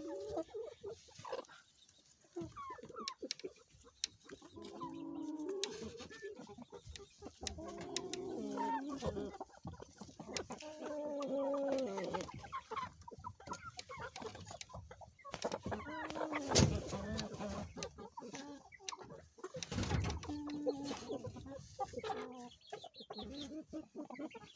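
Chickens clucking and murmuring in short, repeated calls that rise and fall in pitch, with scattered sharp clicks and knocks among them.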